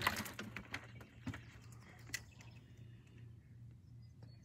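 Quiet outdoor handling sounds: a short burst of clicks and rustling at the start, then scattered light clicks over a low steady hum, with a few faint bird chirps.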